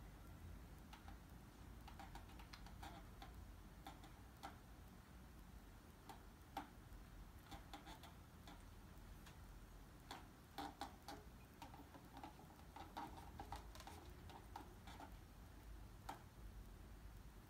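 Near silence: quiet room tone with faint, irregular clicks and ticks, a small cluster of them about ten seconds in.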